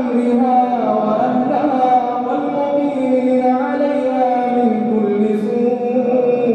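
Men's voices chanting an Islamic supplication (du'a) in long, drawn-out melodic notes that rise and fall in slow phrases.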